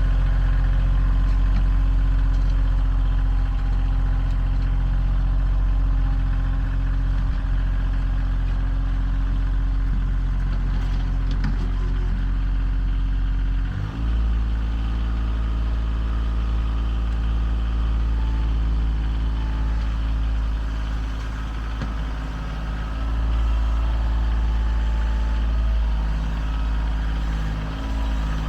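An engine running steadily with a low drone; about halfway through it drops briefly and resumes on a slightly different note.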